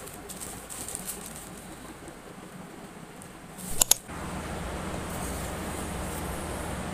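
Light handling of packing materials with small ticks, then two sharp clicks just before four seconds in. A steady rushing noise starts right after the clicks and holds.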